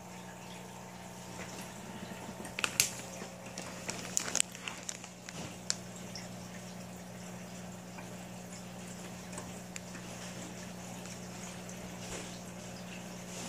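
Aquarium filter running with a steady low hum and a faint bubbling, trickling water sound. A quick cluster of sharp clicks and drips comes about three to six seconds in.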